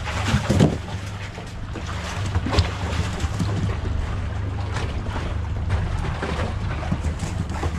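Twin Honda 150 four-stroke outboard motors running steadily, a low hum under wind and water noise. A few sharp knocks come in the first three seconds.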